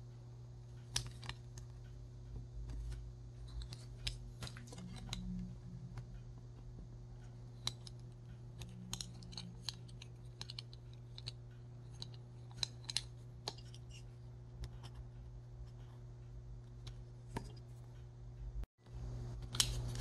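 Scattered light clicks and taps of small hand work, irregular, over a steady low hum; the sound drops out briefly just before the end.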